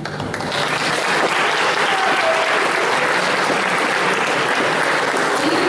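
Audience applauding: scattered claps swell into steady, full applause within the first second.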